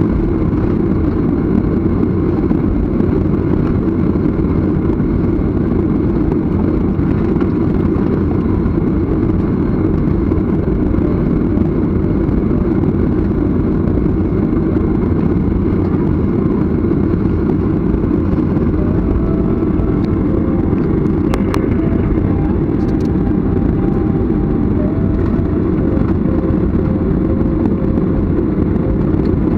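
Jet airliner taxiing, heard inside the cabin: the engines make a steady, low rumble at taxi power. A couple of faint clicks come about two-thirds through.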